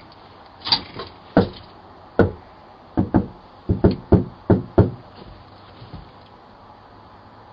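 Knocking on a front door, heard through a doorbell camera's microphone: about a dozen irregular knocks, some in quick pairs and runs, that stop about five seconds in.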